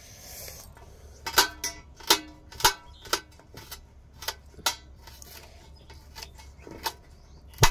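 Small knife cutting garlic and green chillies over a steel thali, its blade striking the plate. About nine sharp clicks at uneven spacing, each with a short metallic ring from the plate.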